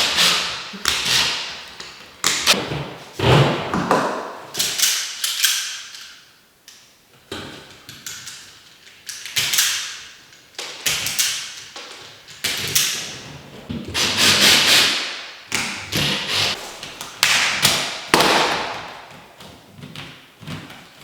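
Irregular knocks, taps and clatter of hands-on work, about one or two a second, each dying away quickly in an echoing room.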